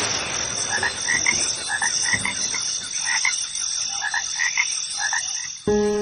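Frogs croaking in short repeated calls, about two a second, over a steady high hiss, most likely a recorded frog chorus played over the sound system.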